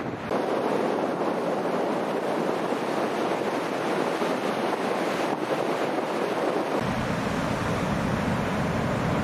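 Ocean surf breaking and washing in as a steady rush, with wind on the microphone. A deeper low rumble joins about seven seconds in.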